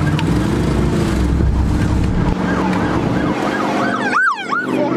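Police siren yelping, its pitch rising and falling quickly about three times a second, loudest about four seconds in. Underneath it the pickup's engine runs, heard from inside the cab.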